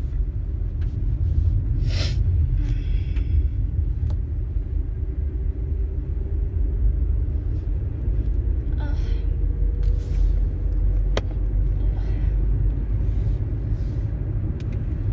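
A woman's high-pitched sneezes and gasping breaths, a few short vocal bursts spaced seconds apart, over a steady low rumble.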